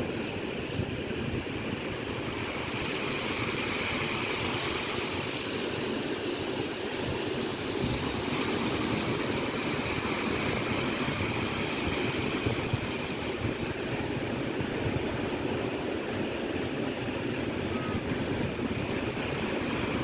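Ocean surf breaking and washing over the rocks at the foot of a sea cliff: a steady rushing wash of water noise.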